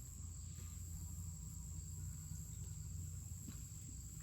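Insects trilling steadily in one high, unbroken tone, over a low rumble.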